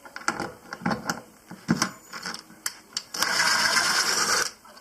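Screws being backed out to take a wall thermostat off: a run of sharp clicks and rattles, then a steady whir lasting just over a second near the end.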